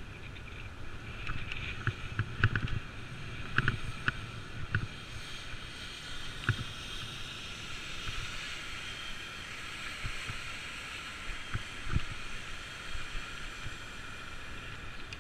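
Bicycle rolling along a city street: steady tyre and wind noise, with a series of sharp knocks as the bike jolts over bumps, several in the first five seconds and one more about twelve seconds in.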